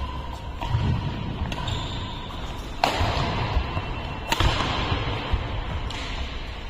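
Badminton rally: two sharp racket-on-shuttlecock hits about a second and a half apart, the second from a jumping overhead smash, echoing in the hall, over low thuds of footwork on the court.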